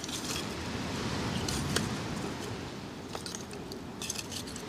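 Lumps of charcoal clinking and scraping against each other as they are stacked by hand onto a smouldering fire. The clicks come irregularly, in small clusters, over a steady background hiss.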